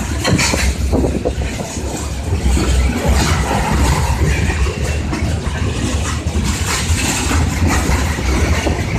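Steady low vehicle rumble with a constant rushing noise over it.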